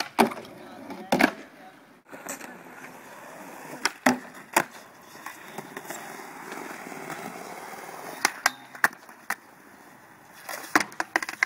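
Skateboard wheels rolling on concrete, broken by sharp clacks and slaps of the board hitting the ground as tricks are popped and landed, with a cluster of clatters near the end.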